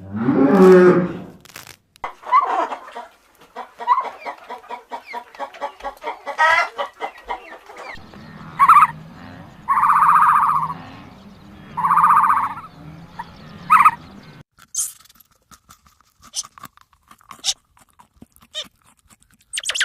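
Chickens clucking and calling, with a loud call at the start, rapid chattering, and two longer calls about ten and twelve seconds in; the sound changes abruptly several times.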